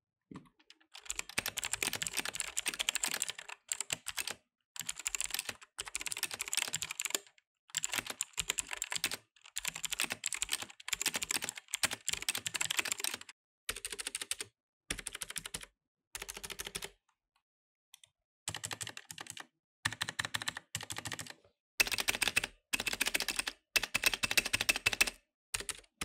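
Bajeal K100 budget mechanical keyboard with stock Outemu blue clicky switches being typed on fast, in runs of dense clicks with short pauses between them and a longer pause about two-thirds of the way through. The sound is pretty bad: hollow, with ticking and rattling that the owner puts down to the stabilizers and the light, hollow plastic case.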